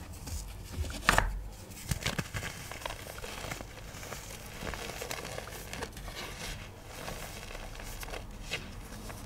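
Dry chalky pigment pieces being crushed: crisp crunching and crumbling with scattered crackles, the sharpest about a second in and again near two seconds.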